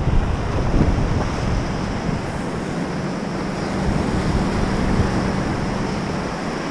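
Surf washing and breaking on a beach, with wind buffeting the microphone as a steady rushing noise.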